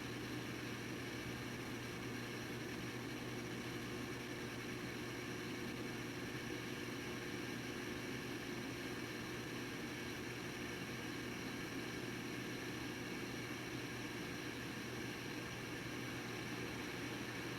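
Steady low hum with an even hiss, a constant fan-like background noise that does not change.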